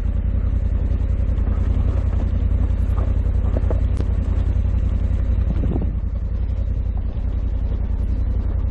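Honda Africa Twin 1100's parallel-twin engine running at steady low revs as the motorcycle rolls along a gravel track, with scattered clicks and knocks of loose stones under the tyres.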